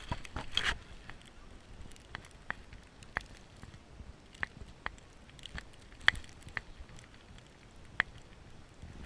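Footsteps crunching in snow: faint, irregular crunches, about one every half second to second.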